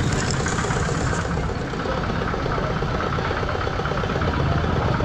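Motorcycle engine running steadily while the bike rides along the road, under a steady rushing noise.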